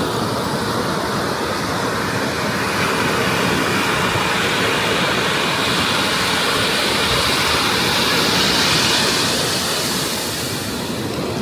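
Ocean surf washing onto the beach, a steady rush that swells about eight seconds in.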